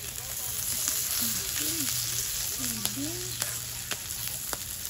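Meat and vegetables sizzling steadily on a hot Korean barbecue grill pan over a portable burner. Metal tongs click against the pan several times as pieces are turned.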